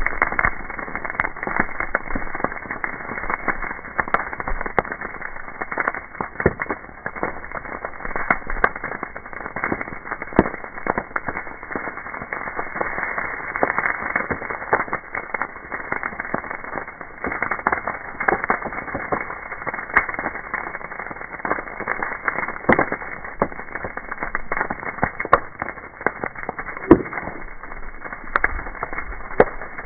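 Burning pile of brush, branches and leaves, crackling with dense, irregular pops and snaps.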